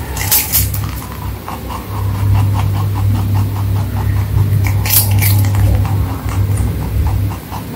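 Rabbit chewing a crisp slice of green-skinned fruit or vegetable: rapid crunching, about four or five bites a second, over a low steady hum.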